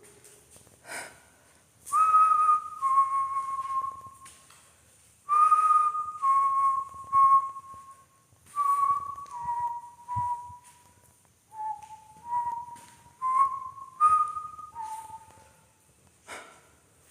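A person whistling a slow tune of long held notes in short phrases, each phrase stepping down in pitch.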